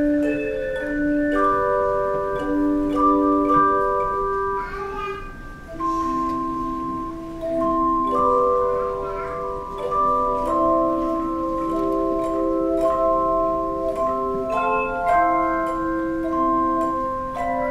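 Student instrumental ensemble playing a slow piece in chords of long held notes that change every second or two, with faint ticks of light percussion.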